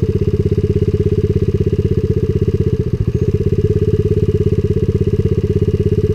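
Small single-cylinder four-stroke pit bike engine idling steadily close by, with an even rapid pulse.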